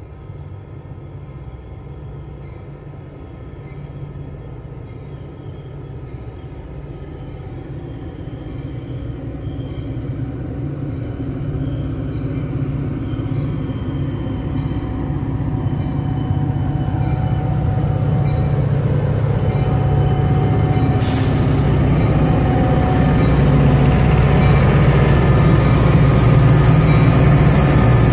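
Metra diesel locomotive and passenger train approaching and pulling in to stop, its engine and wheel noise growing steadily louder as it nears. A brief hiss comes about three quarters of the way through.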